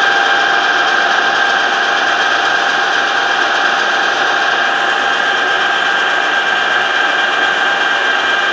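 Metal lathe running at steady speed, turning a welded bus wheel hub for a dial-indicator runout check, with a steady whine from its motor and gearing.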